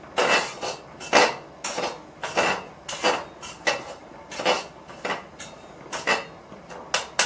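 A metal ladle scraping and knocking against the inside of a large stainless steel pot while stirring, in irregular strokes about one to two a second.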